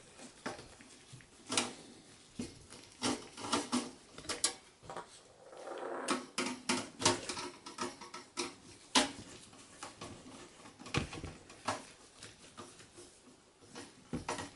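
Phillips screwdriver working the screws of a 92 mm rear case fan in a steel PC chassis: scattered small metallic clicks and ticks, with a stretch of scraping about six seconds in.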